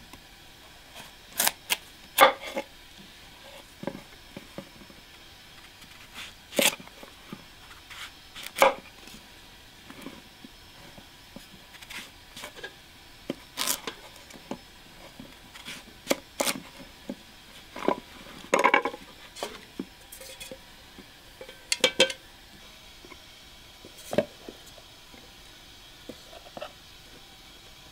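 Knife cutting raw pumpkin on a wooden cutting board: irregular knocks of the blade through the flesh onto the board, spaced a second or more apart. Near the end, pumpkin chunks clunk into an aluminium bowl.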